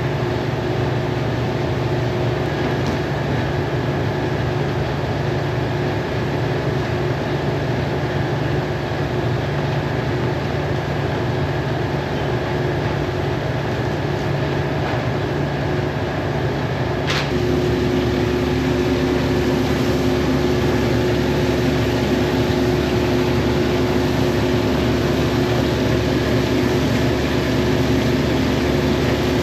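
Steady mechanical hum of machinery running, with a few steady tones over a noisy rush. A click comes about two-thirds of the way in, and the hum then gets a little louder and takes on a new steady tone, as if a second motor had come on.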